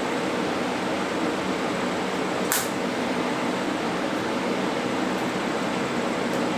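TIG welding arc running, a steady hiss with a low hum, while a weld bead is laid toward the end of a seam. A single sharp click comes about two and a half seconds in.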